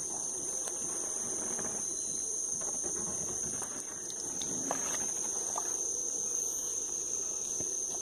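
A howler monkey troop roaring, a dense, rumbling chorus under two steady high-pitched insect drones. A canoe paddle splashes and drips in shallow water.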